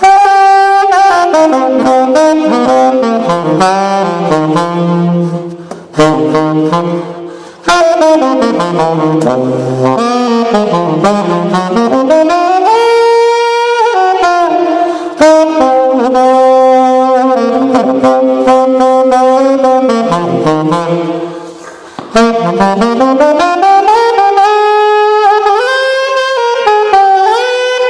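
1927 gold-plated Martin saxophone played in a blues line, phrases of gliding runs up and down, with short breaks between phrases.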